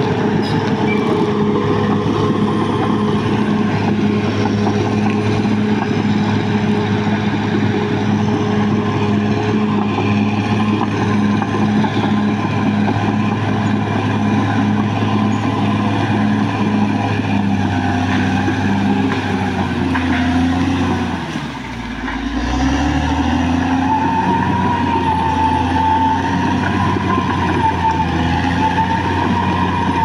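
Caterpillar D6R XL crawler bulldozer's diesel engine running steadily as the machine moves off. About two-thirds of the way through, the engine note dips briefly and then picks up again, followed by a wavering high whine.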